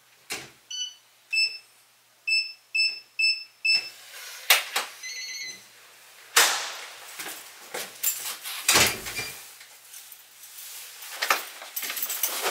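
Six short electronic beeps, like keys pressed on a keypad, then a click and a brief electronic chime. A loud clunk follows, then a run of knocks and rustling.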